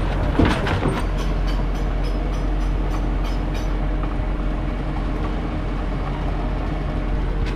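Tractor towing a sailboat on its haul-out cradle up the beach: a steady engine rumble with rattling, and a quick run of light, evenly spaced clicks in the first few seconds.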